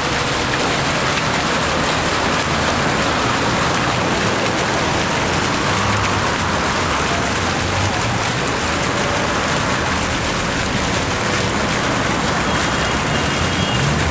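Fountain water splashing steadily: a constant rush of falling water with no breaks.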